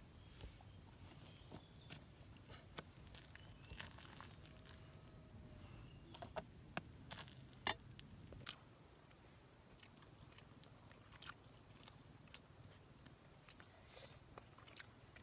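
Faint, scattered clicks and scrapes of a metal serving spoon against an aluminium pot of cooked rice. After that, quiet eating sounds with a few soft ticks.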